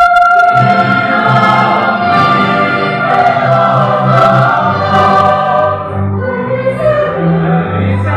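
Mixed choir of women and men singing a church hymn. A held high note gives way about half a second in to fuller singing in several parts, with low voices joining.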